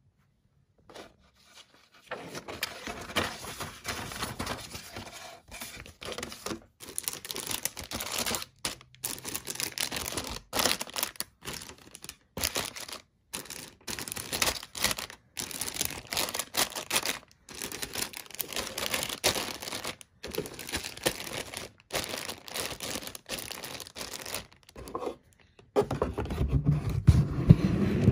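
Plastic bags around model-kit parts runners crinkling and rustling as they are handled, in irregular spells with brief gaps. Near the end, louder handling noise close to the microphone.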